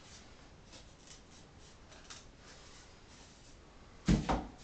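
Faint rustling and light handling of a flat sheet of card, then two dull knocks close together about four seconds in as the sheet is set down into a cardboard box.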